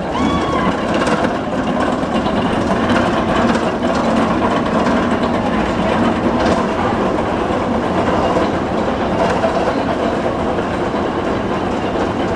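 Vekoma steel roller coaster train running along its track, a steady rumble and clatter of wheels on steel rails, with a short squeal right at the start.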